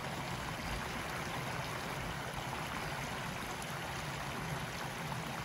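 Stream water pouring over a small wooden weir, a steady rushing splash.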